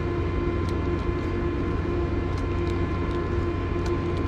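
Steady low mechanical drone with a constant hum, from large machinery running near the river bank, with a few faint ticks over it.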